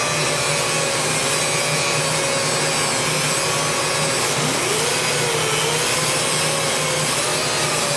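Die grinder with a thin abrasive cut-off wheel cutting steel, a steady grinding whine whose pitch sags and recovers as the wheel is pressed into the cut, about halfway through.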